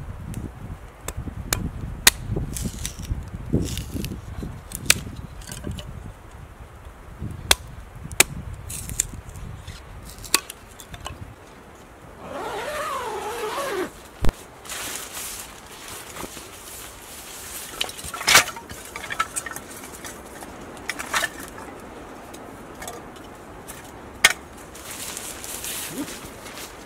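Hatchet splitting kindling on a wooden stump: a run of sharp wooden knocks, about one or two a second, for roughly the first twelve seconds. After that come rustling and a few loud, sharp knocks.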